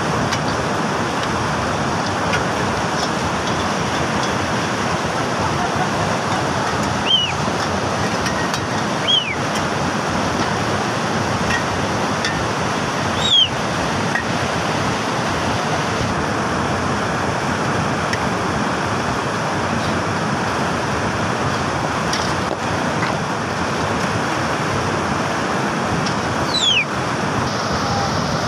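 Mountain stream rushing over boulders, a steady loud rush of white water. Four short high whistles, each falling in pitch, sound over it at intervals.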